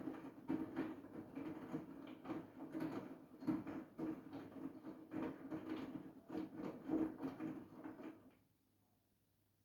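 Siemens iQ700 washing machine running: a steady motor hum with irregular swishing and knocks from the turning drum, stopping abruptly about eight seconds in.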